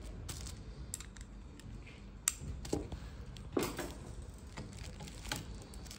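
Metal parts of a ceiling lamp's arms clicking and clattering as they are handled and fitted together, with a few sharp clicks, the loudest a little over two seconds in and around three and a half seconds in.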